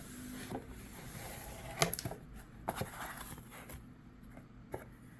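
Rustling packaging being handled and opened, with a few sharp clicks and knocks, the loudest a little under two seconds in.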